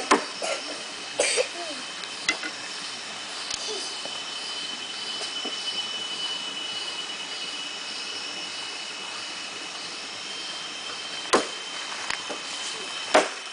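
Steady high-pitched drone of rainforest insects, with a few sharp knocks, the two loudest near the end.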